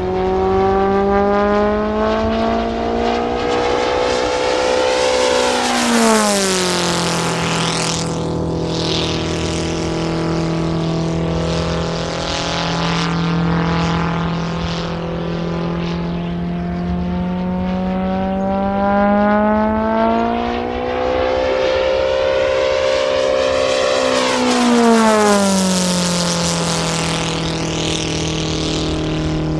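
Kolm 310 cc four-cylinder inline four-stroke engine of a large model aircraft in flight, running at high power. The engine pitch climbs slowly as the plane comes round, then drops sharply as it flies past, about six seconds in and again about twenty-five seconds in.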